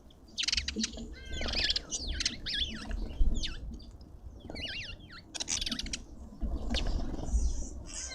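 Several birds chirping and calling, in quick bouts of short notes and whistles that bend up and down in pitch, with low bumps and knocks close to the microphone.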